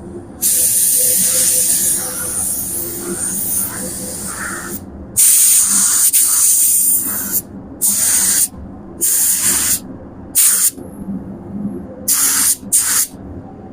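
Paint spray gun hissing in trigger-pulled passes as it lays a coat of primer-filler: one long pass of about four seconds, then a string of shorter bursts that get briefer toward the end.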